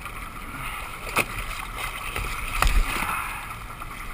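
Steady wash of boat and water noise from a fishing boat lying on the water, broken by two sharp knocks, about a second in and again a little past halfway.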